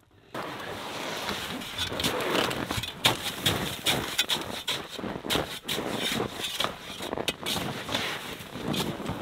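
A small hand shovel scraping and packing frozen snow in quick, irregular strokes, burying a wooden deadman pole as a tent anchor.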